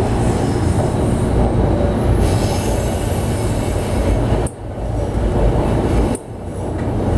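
Tren Urbano metro train running on elevated track, heard from inside the car: a steady rumble of wheels and running gear with a faint high squeal of wheels in the first half. Another train passes close alongside near the start. The noise dips sharply twice, briefly, in the second half.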